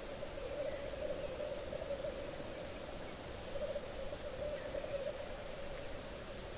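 Male black grouse lekking: several birds' bubbling, cooing display song (rookooing) merging into one unbroken chorus.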